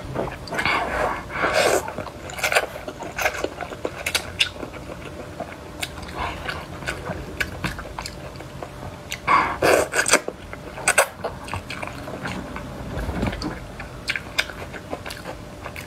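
Close-miked eating sounds: spicy hot-pot noodles slurped and chewed in irregular bursts, the loudest about a second in and again near ten seconds. Chopsticks scrape in the plastic hot-pot tray.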